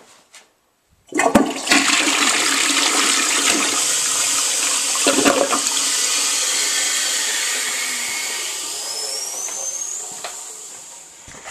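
Toilet flushing: after a second of quiet the water rushes in suddenly and loudly, holds steady for several seconds as the bowl empties, then tapers off. A thin whistle rises in pitch near the end.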